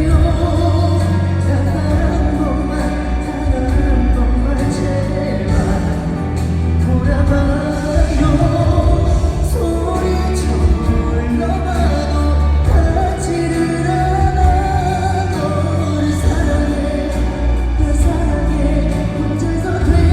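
Live pop song: a male singer's amplified voice carrying the melody over a band with strong bass.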